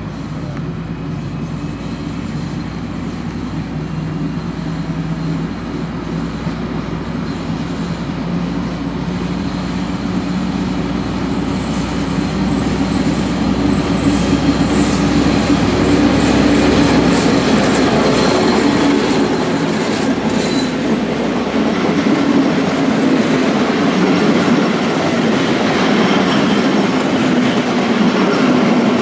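A train running on the track, getting steadily louder as it comes closer, with a steady low hum under the noise of its wheels on the rails.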